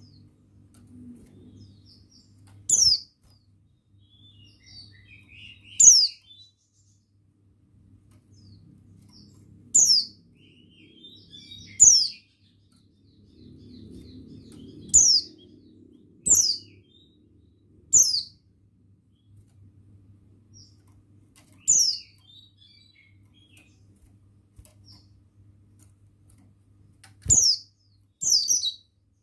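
Buxton's white-eye (pleci buxtoni) giving short, sharp, high-pitched call notes that fall in pitch, about ten of them at uneven intervals every one to four seconds, with faint softer twittering between. A low steady hum runs underneath.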